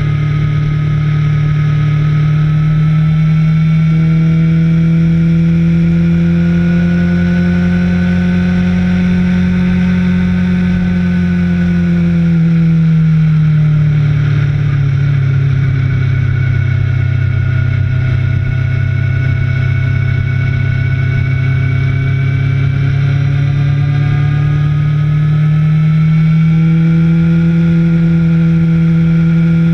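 Motorcycle engine running hard on a track lap, its pitch climbing slowly, falling away about halfway through, then climbing again near the end.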